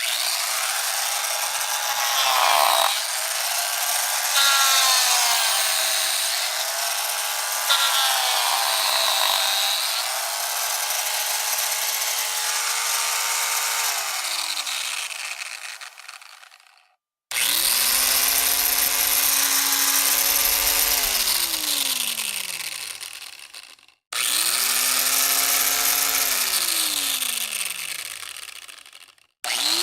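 Roto saw (rotary cutting tool) motor running with a high whine. Its pitch dips and recovers several times, then it winds down to a stop. It is switched on again three times, and each run ends in a falling spin-down.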